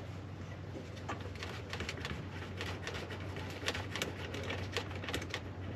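Small, irregular clicks and taps of hands working in the wiring behind a UTV dashboard, threading small nuts back onto terminal posts, over a low steady hum.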